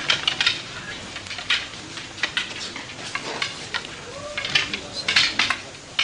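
Many eskrima sticks swung together in a group drill: a busy, irregular run of quick swishes and sharp clacks.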